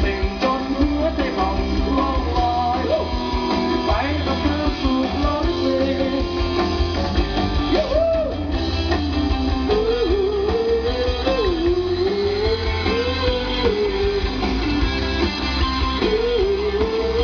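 Rock band playing live: electric guitars, bass and drum kit, with heavy low end. A voice sings a wavering melody over the band from about halfway through.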